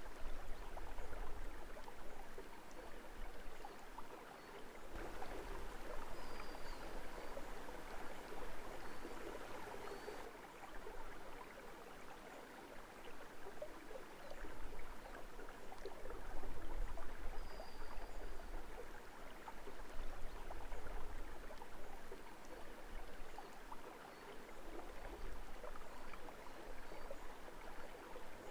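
Stream water running and trickling steadily, with a few faint, brief bird chirps now and then above it.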